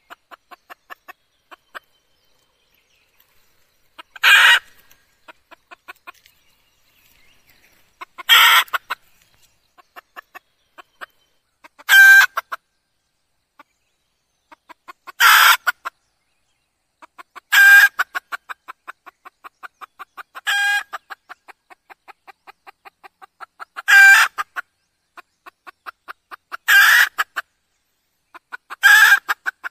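Red junglefowl hen calling: nine loud, short calls a few seconds apart, with runs of soft, rapid clucks between them.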